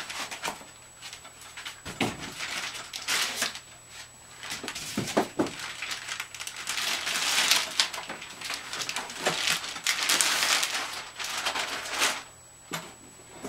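Plastic bag and foam packing being pulled off a newly unboxed machine: irregular rustling and crinkling of plastic sheet, with a few knocks as the packing pieces and the unit are handled.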